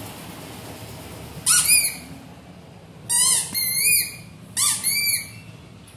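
Squeaky rubber toy squeezed by hand, giving three bouts of short, high-pitched squeaks, the second and third each a quick pair as it is squeezed and let go.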